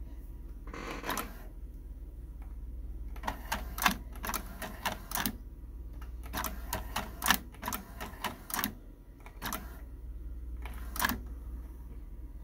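Nakamichi RX-505 cassette deck's transport being worked from its front-panel keys: runs of sharp mechanical clicks and clunks from the buttons and the tape mechanism engaging, after a short burst of mechanical noise about a second in.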